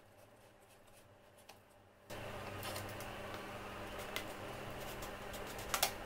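Plastic bottle handled by hand: a few sharp plastic clicks, the loudest a quick double click near the end. Under them, a steady hiss and hum comes in suddenly about two seconds in.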